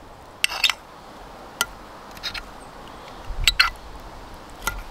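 A metal fork clinking and scraping against a baking tray, a handful of short separate strikes over a few seconds.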